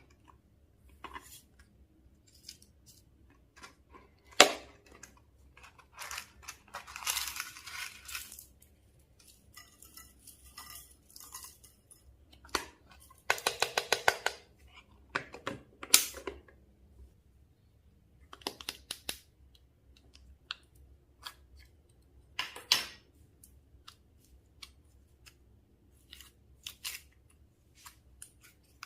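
Slime being squished, stretched and mixed by hand, with irregular sticky crackles and clicks and a quick run of small pops near the middle.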